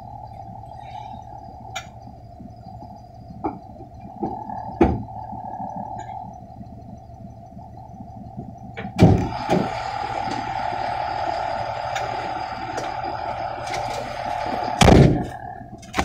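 Box truck engine running at idle, heard from inside the cab, with scattered knocks and handling thumps. About nine seconds in a loud thump is followed by a louder rushing noise that lasts until a heavy thump near the end.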